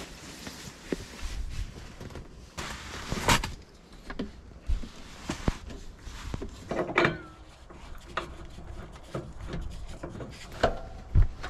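Camping gear being handled and set down: scattered knocks, clicks and rustling, with a louder thump near the end.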